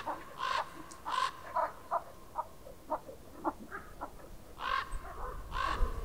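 Crows calling: about ten short, harsh caws spread over a few seconds, the loudest near the end.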